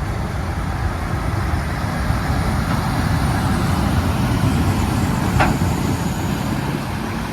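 44 cubic yard off-road dump trucks running, a steady low diesel rumble, with a brief sharper sound about five seconds in.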